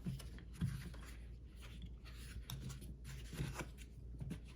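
Faint handling noise: light clicks, small knocks and rubbing as the spark plug sockets and extensions are handled.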